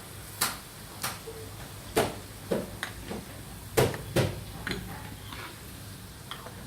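A spoon knocking against the cooking pan as spices are added and stirred in, about seven sharp clacks at uneven intervals, the loudest two close together near the middle.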